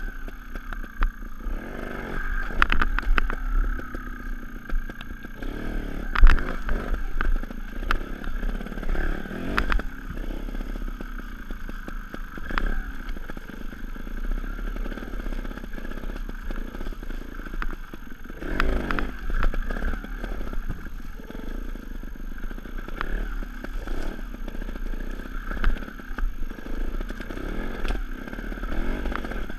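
Sherco 290 ST two-stroke trials motorcycle engine running at low revs with repeated throttle blips, mixed with sharp knocks and clatter; the loudest knock comes about six seconds in.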